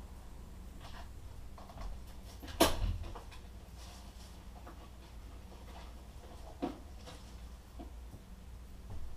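Low steady room hum broken by one sharp knock about two and a half seconds in, a smaller knock later, and a few faint ticks.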